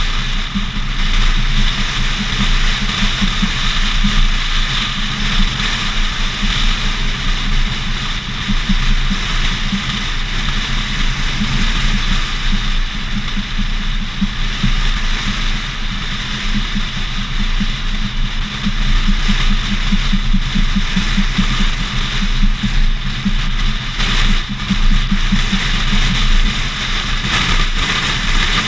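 Steady wind and road noise from a car driving at highway speed, picked up by a camera mounted on the outside of the car, with a constant low rumble of wind on the microphone.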